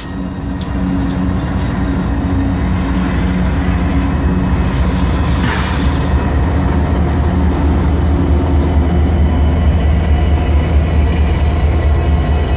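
Union Pacific diesel locomotives passing close by, their engines running with a steady low drone that grows louder as the units go past. A brief hiss comes about five and a half seconds in.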